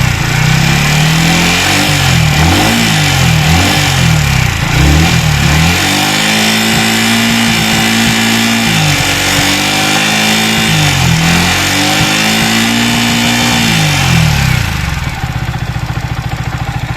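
Yamaha R15 V3's single-cylinder engine being revved: several quick throttle blips, then revs held up for several seconds with a couple of dips, dropping back to idle near the end. The engine is being run to bring out the abnormal engine noise under diagnosis.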